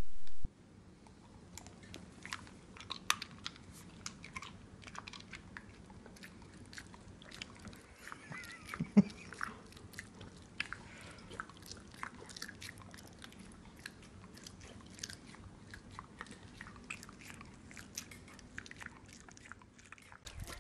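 A dog smacking and chewing with its lips pulled back: irregular wet mouth clicks and smacks, with one louder thump about nine seconds in.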